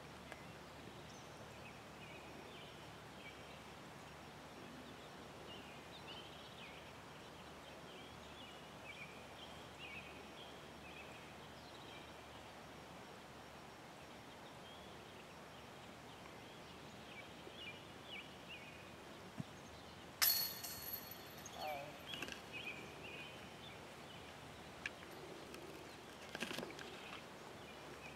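Faint open-air ambience with small birds chirping on and off. About twenty seconds in there is a single sharp clank with a short metallic ring, and a smaller knock comes near the end.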